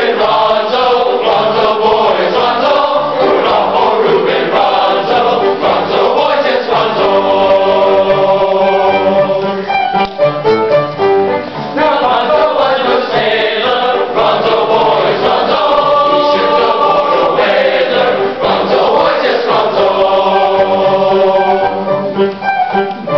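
A boys' choir singing a sea shanty, several voices in harmony.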